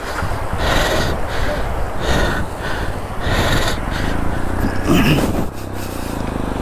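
A person breathing hard in repeated bursts, about one every second and a half, over the steady low running of a motorcycle engine.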